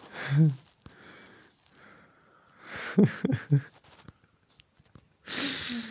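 A man breathing and exhaling audibly close to the microphone, with a few short mumbled voice sounds in between.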